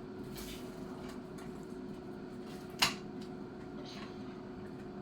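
One sharp clink of metal tools nearly three seconds in, with a few fainter ticks, over a faint steady hum.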